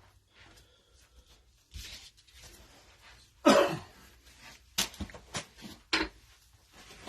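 A person sneezes loudly, once about three and a half seconds in and again near six seconds, with a few short sharp clicks in between.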